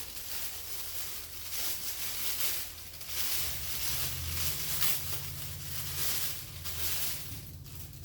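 Rustling and handling noise, uneven and scratchy, with a low steady hum coming in about three and a half seconds in.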